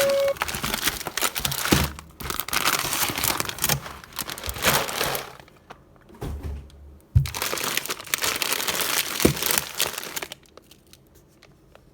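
Packaging crinkling and rustling as it is handled and opened, in stretches with short pauses and a few sharp knocks, dying away near the end.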